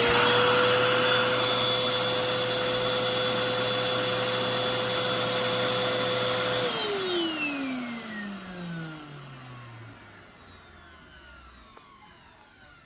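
Hoover Telios vacuum cleaner motor running at full speed with a steady high whine, then shutting off about seven seconds in and spinning down, its pitch falling as it fades.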